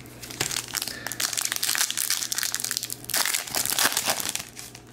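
Foil wrapper of a hockey card pack crinkling and crackling as it is handled and torn open by hand, dying down near the end.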